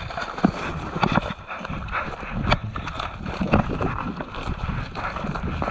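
Hurried footsteps of people running through dry leaves and brushwood, with crunching and rustling of undergrowth underfoot.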